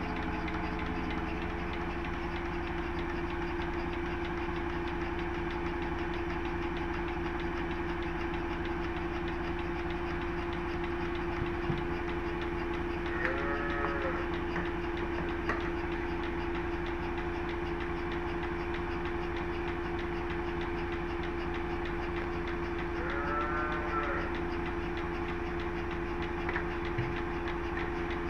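A farm machine running steadily with a constant hum and a fast, even beat underneath. Cattle low twice, once about halfway through and again near the end, each call about a second long.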